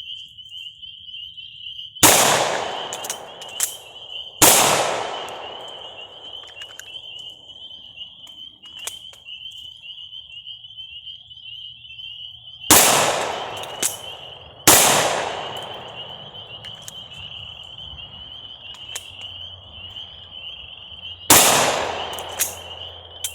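Five pistol shots from a Glock-pattern handgun, in two pairs about two seconds apart and one more near the end, each echoing away over a second or two. Between the shots, the clicks and clatter of the slide locking and magazines being swapped; a steady high insect drone runs underneath.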